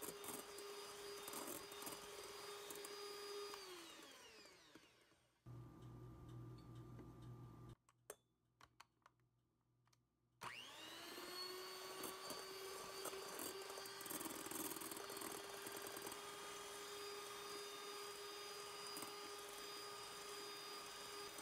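Electric stand mixer with a wire whisk whipping egg whites for meringue: the motor whirs steadily, winds down and stops about four seconds in, and after a short low hum and a few seconds of near silence with small clicks it spins back up around ten seconds in and runs steadily again.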